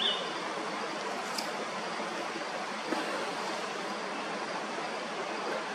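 Steady rushing of a waterfall, an even wash of falling water.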